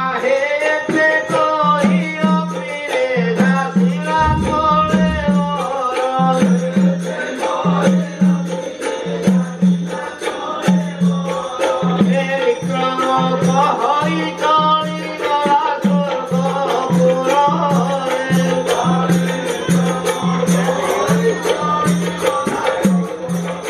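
Traditional Indian Ramlila stage music: a drum beating a steady rhythm, small cymbals or jingles ringing throughout, and a wavering melody line over them.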